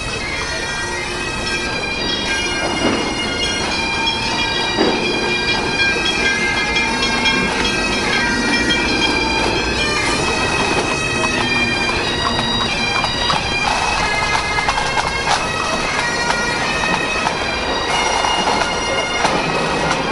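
Bagpipe music: a melody of held notes.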